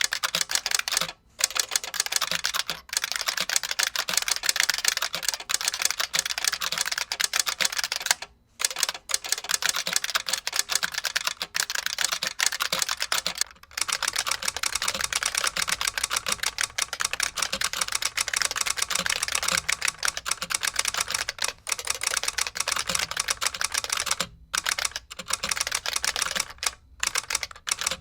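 Fast, continuous typing on an IBM Model F62 keyboard: buckling-spring keys clicking, with a solenoid striking along with the keypresses. There are a few brief pauses in the typing.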